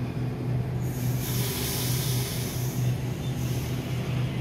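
Sydney Trains Waratah electric train starting to pull away from the platform, with a steady low electric hum. A burst of air hiss comes about a second in and fades after about two seconds, as the brakes release.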